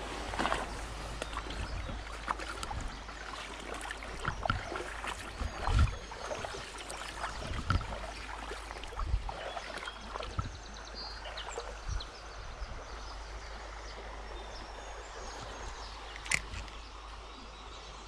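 Outdoor creek-side ambience: a steady hiss of running water, with irregular knocks and rustles close to the microphone, most of them in the first two thirds.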